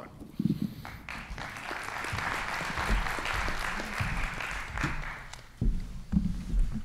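Audience applauding, swelling about a second in and dying away after about four seconds. A few low thumps and bumps come at the start and near the end.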